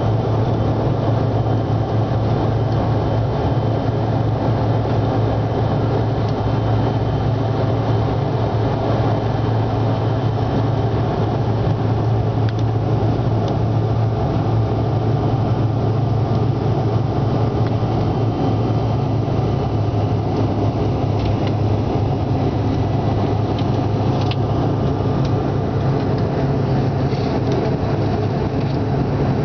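Steady jet airliner cabin noise during the climb after takeoff: engines and rushing air running at a constant level, with a strong low hum.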